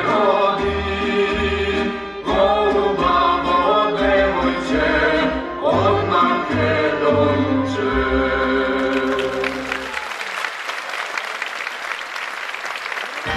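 A children's group sings a Macedonian folk song over an instrumental accompaniment with low bass notes. The song ends about ten seconds in, and the audience applauds.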